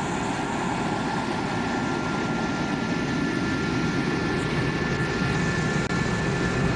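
Jet aircraft engine running steadily: a dense rushing noise with a thin high whine over it. The sound drops out briefly near the end.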